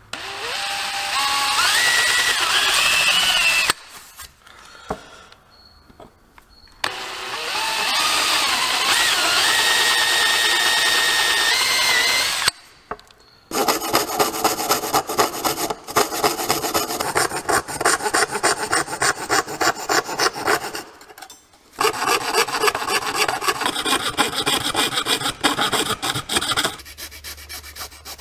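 An electric drill spinning up twice, its whine climbing in pitch as it bores through a thin sheet. From about 13 seconds in, a fret saw cutting the sheet with quick, even strokes, with a short pause partway. Near the end, a small file rasping in a disc's slot.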